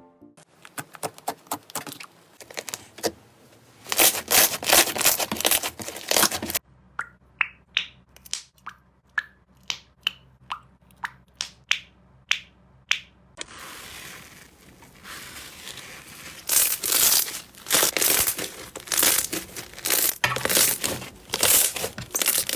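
Slime being squeezed, pressed and poked close to the microphone, crackling, crunching and popping. The sound changes abruptly twice. In the middle stretch it is a string of separate pops, about two a second.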